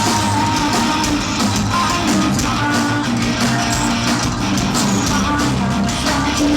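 Live rock band playing at full volume: distorted electric guitars, bass guitar and drums driving a steady beat.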